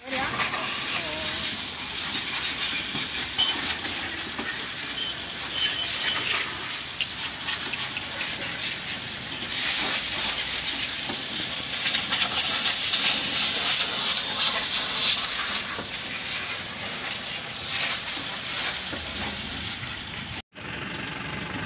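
Steady, loud high-pressure hiss of a car-wash spray jet, breaking off for a moment near the end.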